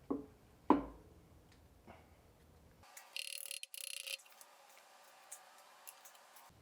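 Two sharp metallic clicks of parts and tools being handled on the engine, the second the louder, then about a second of hiss with a short break in it.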